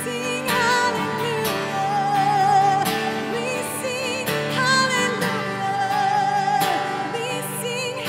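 A woman singing a slow worship melody with vibrato and long held notes, accompanied by a strummed acoustic guitar.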